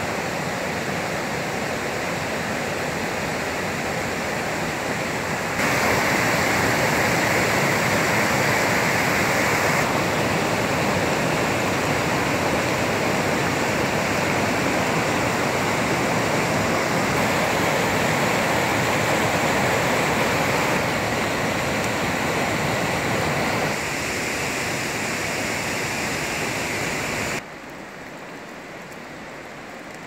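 Fast rocky mountain stream rushing over boulders in white-water rapids, a steady loud rush of water. The level steps up and down a few times and drops to a quieter, softer hiss near the end.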